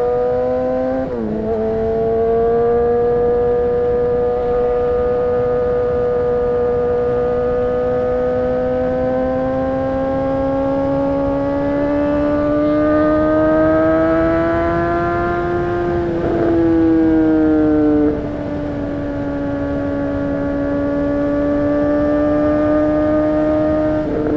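Honda CBR600RR's inline-four engine running at high revs under way. The pitch dips briefly about a second in, then climbs slowly for about fifteen seconds. About two-thirds through the revs drop in two steps, and then they hold steady.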